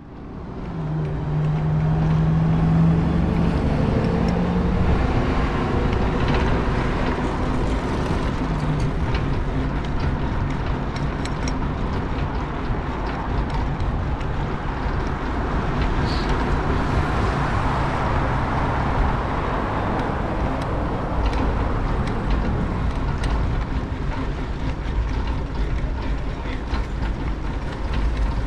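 Riding noise from a bicycle: wind buffeting the action camera's microphone over steady tyre and road noise. A low hum from passing motor traffic sits under it in the first few seconds.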